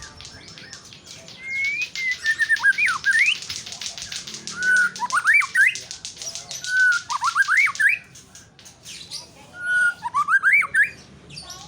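White-rumped shama singing: four whistled phrases a few seconds apart, each opening on a held note and breaking into quick rising and falling sweeps. A fast, high rattle runs behind the song until about eight seconds in.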